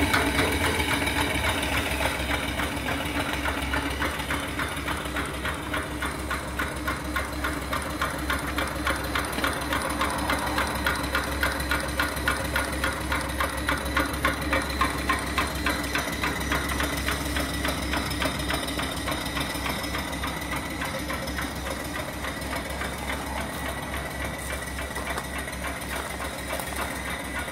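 A small single-cylinder horizontal steam engine (2.75-inch bore, 4-inch stroke, with flyball governor) running at steady speed with a rapid, even mechanical beat, gradually getting fainter.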